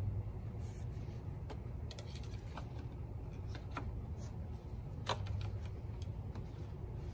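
Light clicks and taps of the dipstick on a Kohler 7000 Series engine being twisted loose and drawn out of its tube to check the oil level, the sharpest about five seconds in, over a steady low rumble.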